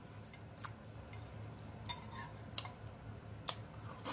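Eating sounds: a handful of faint, scattered clicks from a fork against a plate and mouth smacking while chewing, over a low steady hum.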